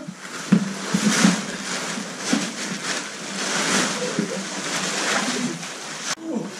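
Plastic tarp crinkling and rustling as it is lifted and dragged across the floor, with a few knocks in the first second and a half.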